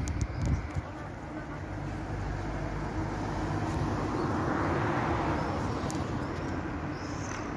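City street traffic: a motor vehicle passes by, its noise swelling to a peak about halfway through and then fading.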